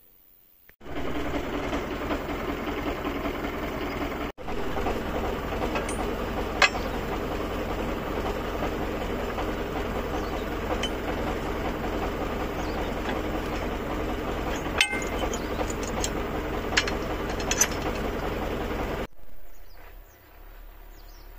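Mower engine running steadily, with a few sharp ticks; it breaks off for an instant twice and stops about two seconds before the end.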